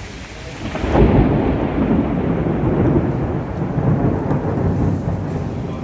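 A long, low rumble of thunder during a heavy rainstorm. It swells suddenly about a second in and rolls on.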